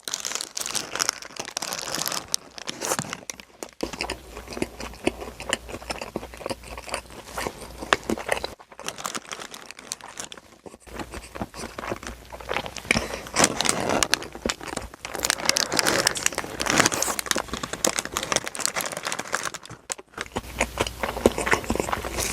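Paper burger wrapper crinkling and tearing, then biting and chewing of a Quattro Pepper Cube Steak Whopper, with dense crackling and crunching and two short pauses.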